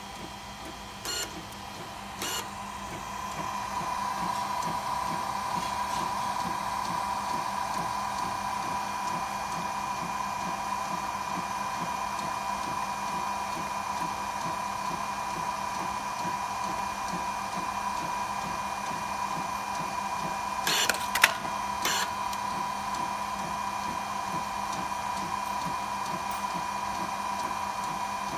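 Fujifilm Frontier-S DX100 inkjet photo printer running a 4x6 print job: a steady mechanical whir with a high tone, growing louder a few seconds in. Single clicks come near the start, and a short cluster of sharp clicks about three-quarters of the way through.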